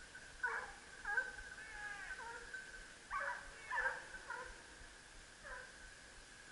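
Hunting hounds baying faintly, a handful of short falling calls, some overlapping, as the pack works through the wood.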